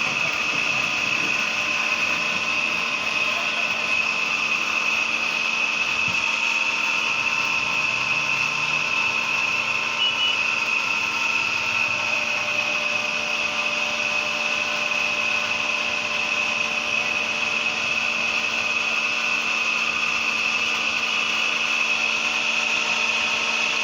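A small motor runs steadily in a blacksmith's shop, with a high, even whine and a hiss.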